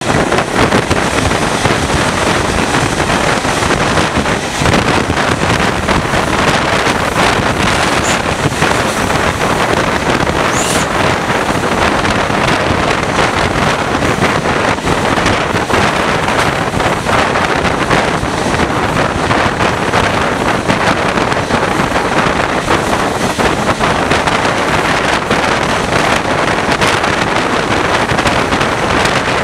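Wind buffeting a microphone held out of the window of a moving train, over the running of Irish Rail's General Motors diesel locomotive 217 and its wheels on the rails. A steady, loud rushing noise.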